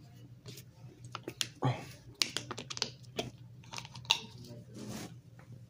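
Close mouth sounds of a person eating ice cream: irregular wet smacks and clicks of chewing and tasting, over a faint steady low hum.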